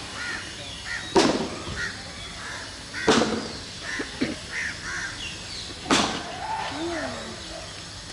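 Crows cawing: three loud, harsh caws about one, three and six seconds in, with fainter bird calls between them.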